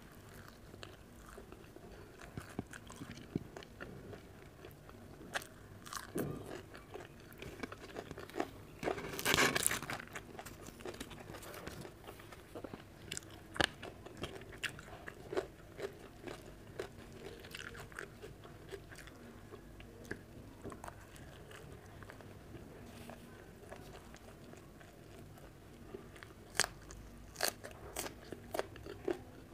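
Close-miked chewing and mouth sounds of a person eating roti with okra (bhindi) sabji by hand: scattered short smacks and crunchy bites, with a louder burst about nine seconds in.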